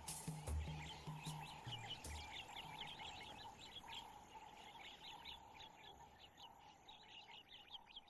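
Many small birds chirping in a dense, rapid chorus that fades out steadily. A few low bass notes of music die away in the first two seconds.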